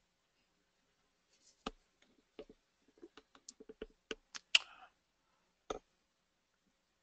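About a dozen sharp, irregular clicks and taps of computer-desk handling, such as mouse or keyboard clicks. They come between about two and six seconds in, bunched in the middle, and the loudest is about four and a half seconds in.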